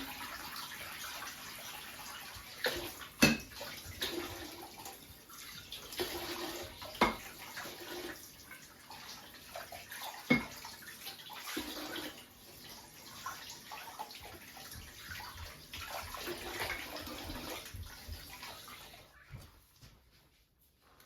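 Water running steadily from a tap, with a few sharp knocks, stopping shortly before the end.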